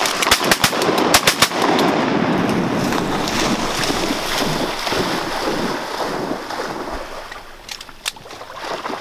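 A rapid volley of shotgun shots from several hunters firing at ducks overhead, about half a dozen blasts in the first second and a half. It is followed by several seconds of rushing, splashing water that slowly dies down.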